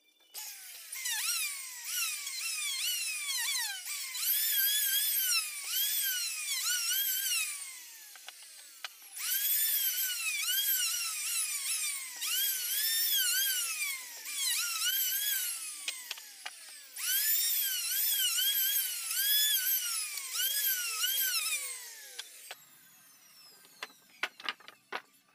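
Electric trim router running at high speed with a high whine, its pitch dipping and recovering over and over as the bit cuts along the edges of a small wooden block. It runs in several spells with short pauses and stops near the end, followed by a few light knocks.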